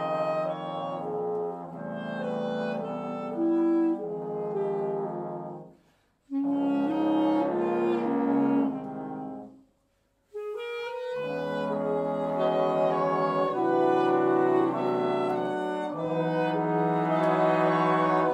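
Jazz big band brass and reeds, trombones with saxophonists doubling on clarinet, playing held chords. The music stops dead twice for a fraction of a second, about six and ten seconds in.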